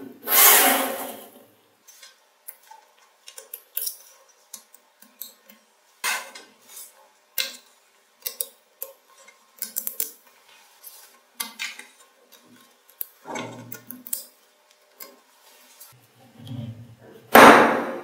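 Small magnetic metal balls clicking and clinking as they are snapped together by hand into a layered disc, in scattered sharp clicks, with louder rattling clatters about half a second in and near the end.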